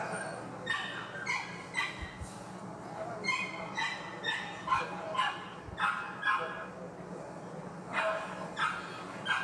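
A dog barking in a string of short yaps, about one or two a second.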